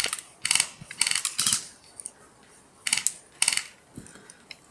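Airsoft electric rifles firing short bursts in an exchange of fire, about five quick rattling bursts with pauses between them, the gearbox mechanisms clicking.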